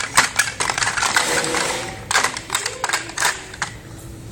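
Toy cookware and play food being handled, giving a quick irregular run of light clicks and clatters of small hard objects, with faint voices in the background.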